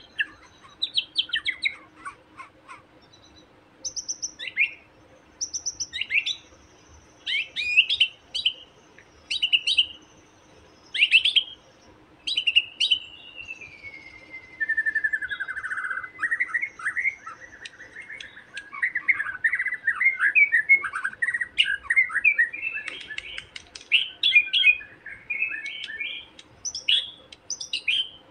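A young wild white-rumped shama singing its taunting song. Short whistled and chattering phrases come one after another. Near the middle a long whistle slides downward, then a long run of rapid chattering notes follows.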